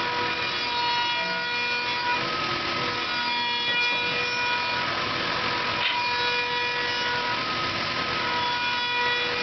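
CNC router cutting a carving into wood: a steady high spindle whine over a rough cutting noise. Its tones break off and return every second or two as the bit moves through the pattern.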